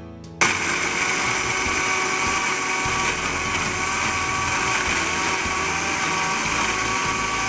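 Electric mixer grinder's small jar grinding roasted dried shrimp and dried red chillies into powder. The motor switches on suddenly about half a second in and runs steadily at full speed, with a high whine over the grinding.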